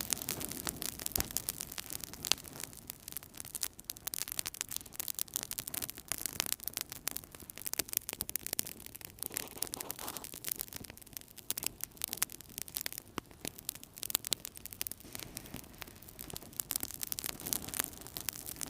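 Wood fire burning in a fireplace: continual crackling with many small irregular pops and snaps over a soft low rush of flame.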